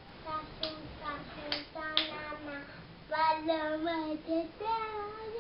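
A young girl singing: held notes that slide up and down, louder in the second half.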